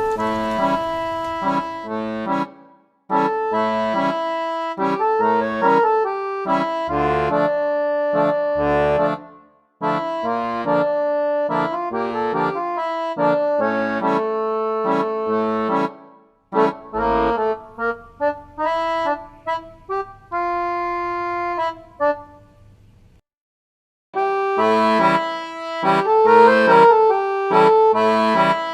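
Instrumental background music: a reedy, accordion-like melody in short repeated phrases, breaking off briefly every several seconds.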